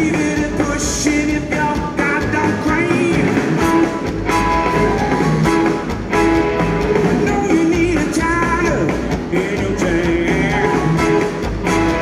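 Live electric blues band playing at full volume: a Stratocaster-style electric guitar over drums and bass, with a male voice singing at times.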